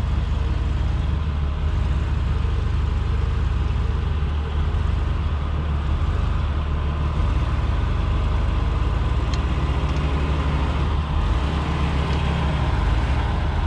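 Jeep Cherokee XJ's engine running low and steady near idle as it crawls slowly through a muddy rut.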